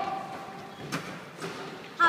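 Thuds from a basketball game on a hardwood court: one clear thud about a second in and a fainter one shortly after, over low hall noise.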